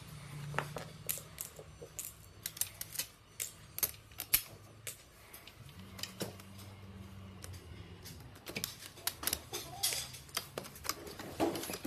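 Irregular clicks and clacks of a patio umbrella's aluminium ribs and plastic hub being handled and fitted together, over a faint low hum.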